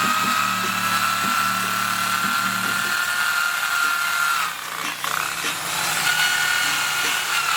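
Handheld power tool running with a steady high whine as it cleans down a wooden board; the whine dips and breaks briefly about four and a half seconds in, then picks up again.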